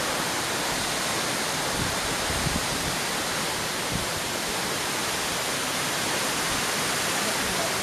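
Steady rush of a fast-flowing stream tumbling over rocks as small waterfalls, an even, unbroken noise.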